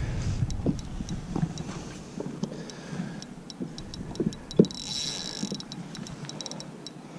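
Spinning reel ticking irregularly while a hooked bream is played on light line, with a few soft knocks, the loudest just after four and a half seconds.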